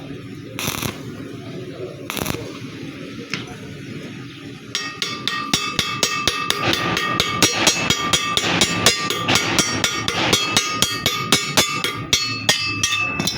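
A few separate knocks, then from about five seconds in a fast, irregular run of hammer strikes on metal, several a second, with the struck metal ringing at a steady pitch throughout.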